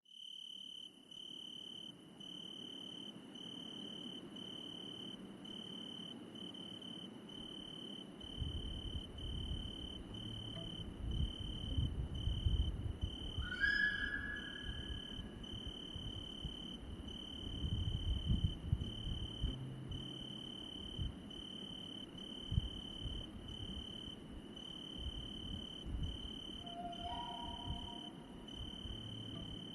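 Night forest ambience: crickets trilling steadily in short, evenly spaced pulses, over low rumbling that swells and fades. A brief higher animal call comes about halfway through, and a lower short call near the end.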